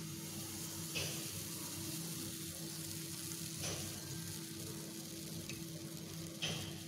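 Pancake batter sizzling steadily in a hot nonstick pan as it is poured from a plastic measuring cup, with about three short clicks.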